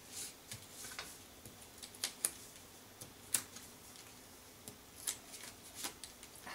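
Light, irregular clicks and taps of a pen-style tool pressing small foam adhesive dimensionals onto card stock.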